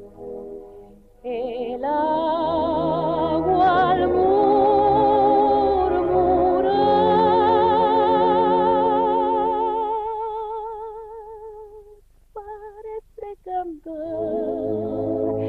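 A woman singing long held notes with a wide, even vibrato. The voice fades out about ten seconds in and comes back in short broken phrases near the end.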